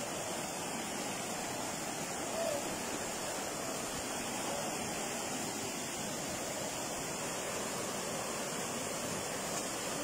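River rapids rushing steadily over rocks.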